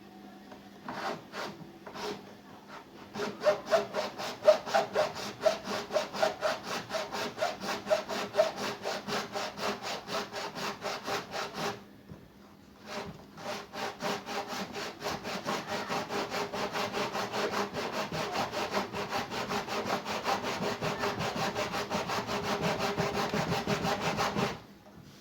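Hand saw cutting through a washing machine's sealed plastic tub with quick, even back-and-forth strokes, to split it open so the drum bearings can be replaced. The sawing stops briefly about halfway through, then resumes.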